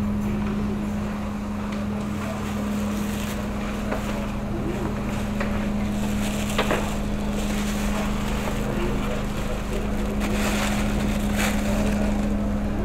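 Passenger ferry's engine running with a steady low drone and rumble. A few short knocks sound over it, the sharpest about six and a half seconds in.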